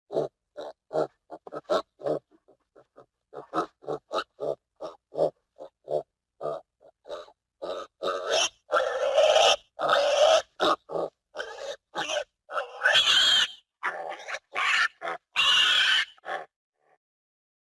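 Pig grunting in a quick run of short grunts. From about eight seconds in the grunts turn longer, louder and harsher, breaking into short squeals.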